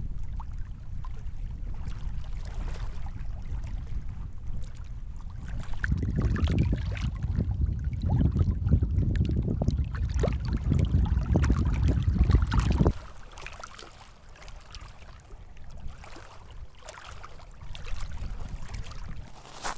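Wind buffeting an iPhone's built-in microphone with no windscreen, heard as a gusty low rumble. It grows stronger about six seconds in and cuts off suddenly a little past the middle, leaving quieter outdoor air with light rustles and ticks.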